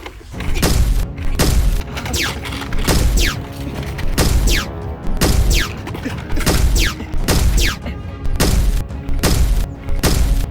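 Action-movie soundtrack music: a heavy bass beat pounding about once a second, with sharp hits and repeated high falling whooshes.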